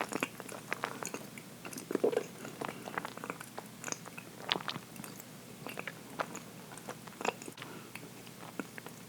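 Close-up chewing and mouth sounds of someone eating dense chocolate cake: soft, wet smacks and small clicks at an irregular pace, with a louder cluster about two seconds in.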